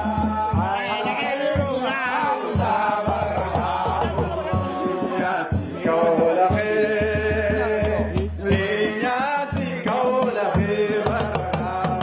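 Zikr chanted by a praise singer's voice over musical accompaniment with a low pulsing beat.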